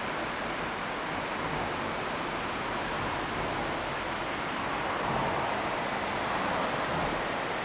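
Steady, even rushing noise with no distinct events, slightly louder about five seconds in.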